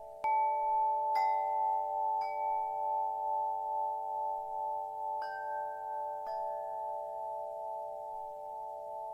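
Metal wind chime being struck: five clear strikes, three in the first two seconds and two more around five and six seconds in, each ringing on with the other tones so they overlap in a sustained, wavering, slowly fading chord.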